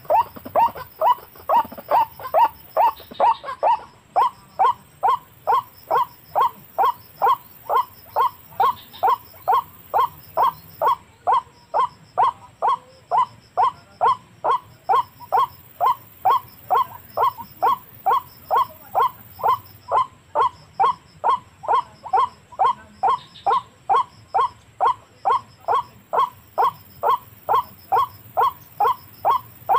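White-breasted waterhen call, a short 'kwak' note repeated very evenly a little over twice a second without a break, played as a lure to draw waterhens to a snare.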